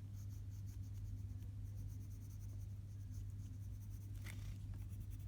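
Colored pencil scratching on paper in quick, short shading strokes, about six a second, with a short break about three and a half seconds in. A steady low hum runs underneath.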